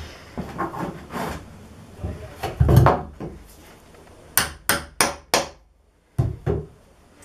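Claw hammer tapping a coach bolt home through a drilled hole in a timber workbench frame: a heavier knock about two and a half seconds in, then five quick sharp taps a little past four seconds, and one more near the end.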